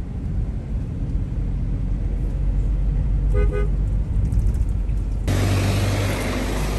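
Road traffic: a steady low engine rumble, with a short double toot of a vehicle horn about three and a half seconds in. About five seconds in, a louder rushing noise starts abruptly.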